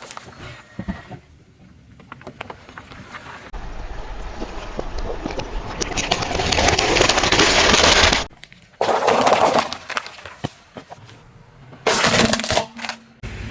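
Car tyres rolling over and crushing crunchy objects: dense crackling and snapping, heard in several short clips cut one after another, loudest in the second clip.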